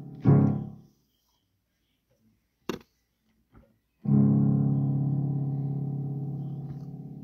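Improvised chords on an instrument: a chord sounds about a quarter second in and is stopped within a second, then near silence broken by one sharp click, and about four seconds in a last chord rings out and slowly fades.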